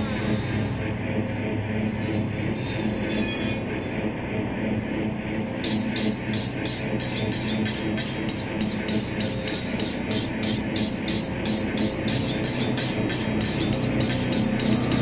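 Dark ambient film score: a low, steady drone that, about seven seconds in, turns abruptly louder into a harsh, noisy texture with a fast, rhythmic crackle and a thin high whine.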